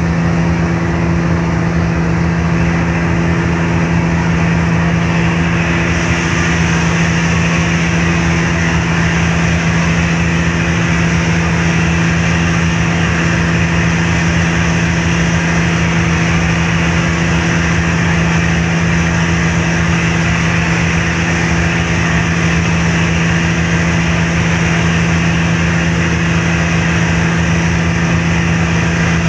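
Car ferry's engines running steadily under way: a constant deep hum with overtones under a steady rushing noise.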